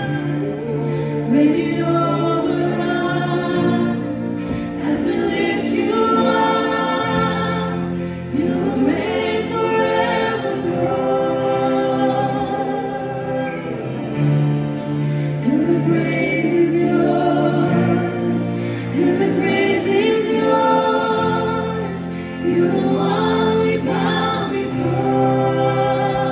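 Live worship band and singers performing a slow praise song: several voices hold long, wavering sung lines over sustained bass notes that shift every few seconds, backed by guitars and keys.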